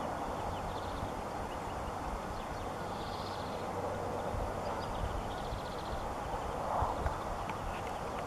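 European greenfinch singing: a few faint, short, high trilled phrases, about a second in, around three seconds and near six seconds, over a louder steady background rush.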